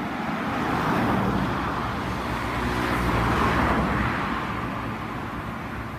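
Road traffic going past, the rush of passing vehicles with a low engine rumble swelling about a second in and again around three and a half seconds.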